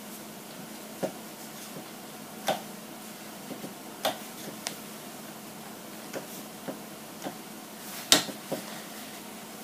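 Irregular light clicks and taps of a small hand tool and small hard kit parts being handled, about a dozen over the stretch, the loudest about eight seconds in. A faint steady hum runs underneath.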